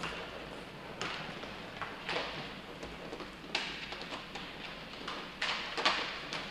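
Inline hockey play: irregular sharp clacks and knocks of sticks and puck on the rink floor and boards, with a hall echo after the louder ones.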